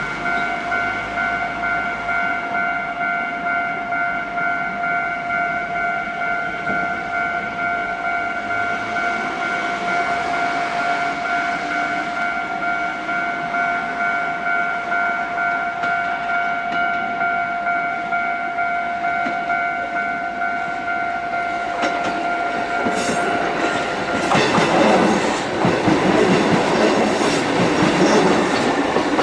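Japanese railway level crossing warning bell ringing, a repeating electronic ding. Near the end the bell stops and a Kotoden electric train passes, its wheels clattering over the rail joints.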